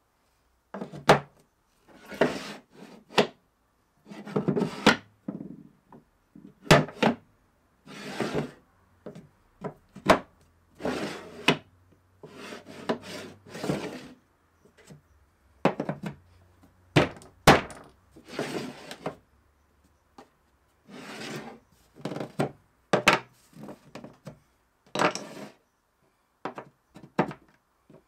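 Aluminium bench dogs (20 mm rod with aluminium collars) set into and lifted out of the dog holes of a plywood worktop, with wooden blocks put down and slid across the plywood: a run of separate sharp knocks and clunks between short rubbing scrapes.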